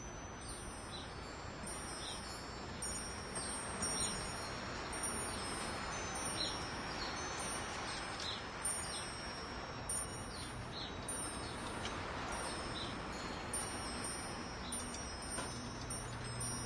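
Wind chimes tinkling irregularly, high ringing notes struck again and again and overlapping as they ring on, over a steady rushing background noise.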